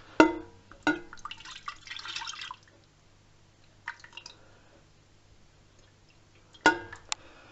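Strained rosehip juice poured from a bowl into a metal pan, splashing for about a second and a half, with a ringing metal clank as the vessels touch at the start and two more clanks near the end.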